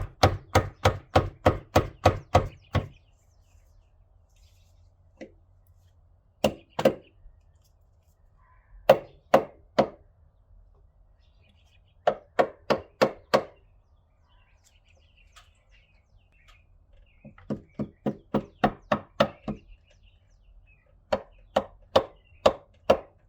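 Rubber mallet tapping a new pitch stop mount into place, in runs of quick taps about four a second with pauses between the runs. The taps are gentle, driving in a mount too stiff to seat by hand.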